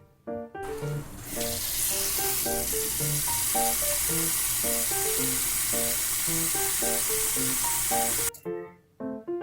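A steady, loud sizzling hiss that fades in over about a second, holds, and cuts off suddenly near the end, over light plucked background music.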